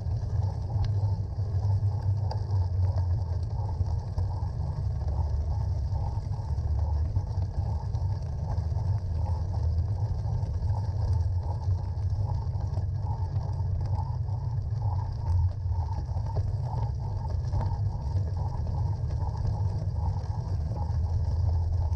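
Steady riding noise from a bicycle on a snowy, icy path: a low rumble of wind and tyre roll on the camera microphone, with a fainter fluttering crunch and hiss above it.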